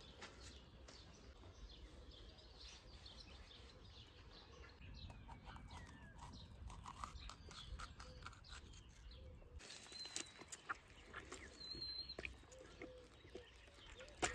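Faint outdoor quiet with scattered small clicks and a few short bird chirps, about ten seconds in and again near twelve.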